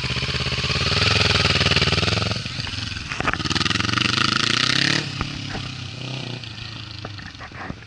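Kawasaki Ninja 400's parallel-twin engine through an Akrapovic carbon slip-on exhaust with the catalytic converter removed, accelerating hard. The revs climb, dip at a gear change about two seconds in, then climb again under rushing wind. About five seconds in the throttle shuts and the engine winds down, with a few sharp cracks.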